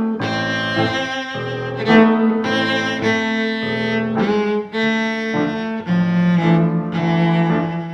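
Music on bowed string instruments playing a series of held notes, each lasting about half a second to a second.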